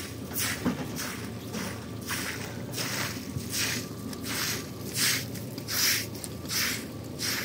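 Straw broom sweeping muddy water across a wet concrete slab: a steady run of wet swishing strokes, about one and a half a second.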